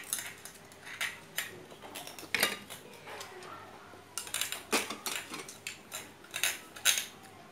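Spoons scraping and clinking against grilled shellfish shells and a bowl while eating, a string of irregular sharp clicks.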